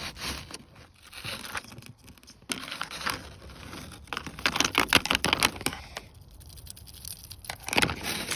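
Irregular rustling and crinkling with scattered clicks, the sound of gear being handled close to the microphone, loudest about halfway through and again near the end.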